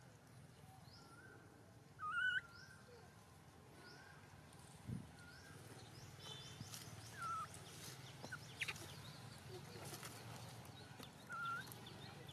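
Newborn macaque giving short, thin, wavering cries three times: about two seconds in, the loudest, again about seven seconds in and near the end. Faint short chirps repeat in the background.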